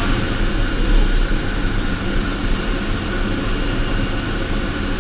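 Steady propeller-engine drone and wind rush inside a skydiving jump plane's cabin with the jump door open.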